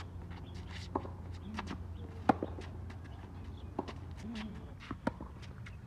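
Tennis rally on a hard court: a tennis ball struck by rackets and bouncing, heard as sharp, spaced pops, the loudest about two seconds in, over a steady low hum.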